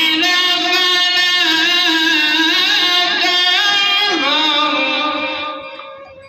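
A man's voice in melodic Quran recitation (tilawat), drawing out long held phrases with gliding ornaments, fading out near the end.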